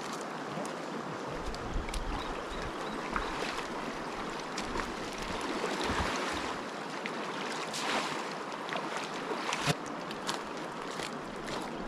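Steady rush of a shallow, fast river, with footsteps crunching on river gravel. About halfway through, a collapsible sink is dipped into the river and filled, splashing, and there are low wind bumps on the microphone.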